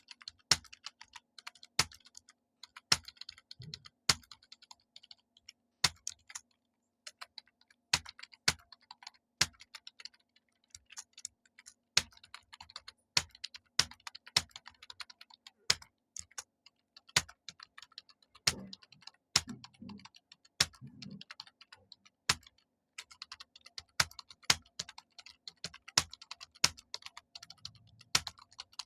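Typing on a computer keyboard: a continuous run of keystrokes, with sharper, louder clacks standing out about once or twice a second.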